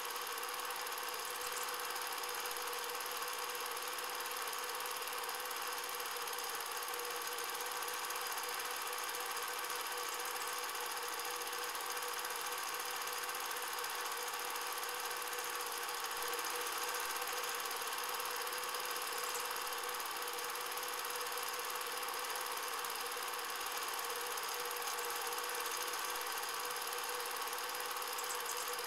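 Cine film projector running: an even, unchanging mechanical whirr with a few steady hums in it.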